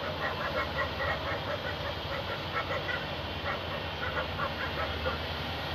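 A flock of birds calling in many short, rapid honking calls, over a steady low background rumble.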